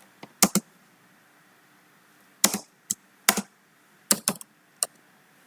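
Computer keyboard keys being typed in short, irregular clusters of clicks with pauses between them.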